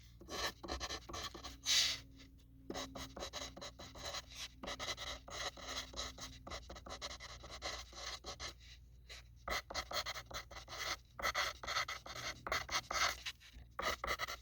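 Pencil writing on a sheet of paper: quick, scratchy strokes in rapid succession, with short pauses about two seconds in and again about nine seconds in.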